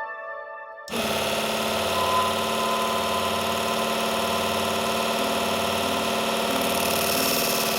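Electric power tool starting abruptly about a second in and then running steadily, likely working the metal saw blade.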